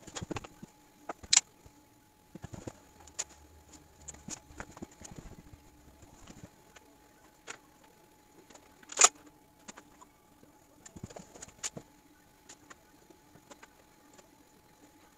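Scattered clicks, taps and knocks of hands working parts and fasteners on a pickup's front-end grille shutter assembly during reassembly, with two sharper, louder clacks about a second and a half in and about nine seconds in.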